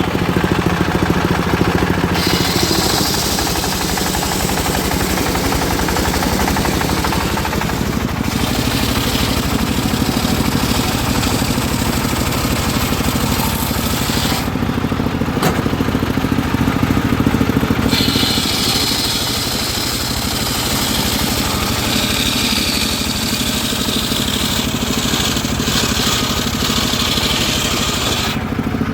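Homemade engine-driven circular sawmill running steadily while its blade rips through a teak log. A high, hissing cutting noise rides over the engine and drops away a few times, briefly, as the cut pauses.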